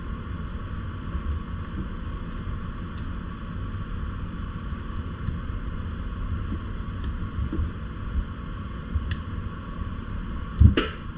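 Handling noise of a shock pump being fitted to the Fox Float X air shock's valve to read its pressure: a low steady rumble with a few faint clicks, then a sharp knock near the end.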